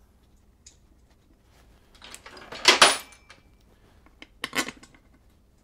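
Steel bolts clinking against a Harley-Davidson Sportster's metal primary cover as they are set into their holes and started a few threads by hand: a cluster of clinks about two to three seconds in, the loudest, and a shorter one near the end.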